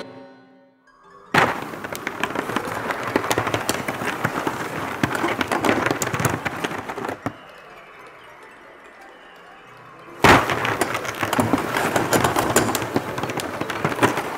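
Wooden floorboards cracking and creaking as the laid floor buckles and heaves up. There are two long spells of dense crackling: the first starts suddenly about a second in and lasts some six seconds, the second starts suddenly near ten seconds in.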